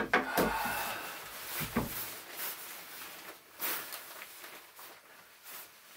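A sharp click or knock, then about two seconds of rustling and handling noise, followed by scattered softer rustles and knocks as gear is moved about in a small room.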